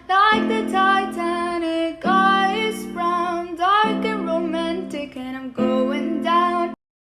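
A voice singing over strummed acoustic guitar chords in several short phrases, cutting off suddenly near the end.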